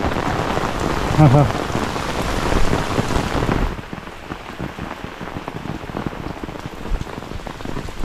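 Heavy rain pouring down in a sudden downpour. A little under four seconds in, the dense hiss falls off sharply, leaving lighter rain with separate drops ticking.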